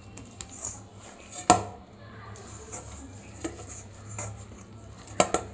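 Hands kneading soft, oiled pizza dough in a stainless steel bowl, with a few sharp knocks against the bowl: the loudest about a second and a half in, and two quick ones near the end.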